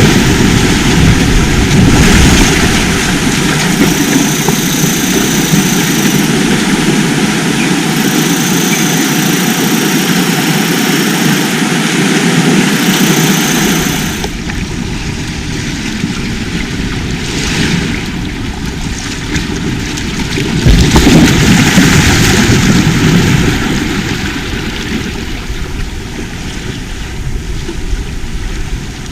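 Sea waves washing on the shore, a continuous rushing that swells and eases, loudest about two-thirds of the way through.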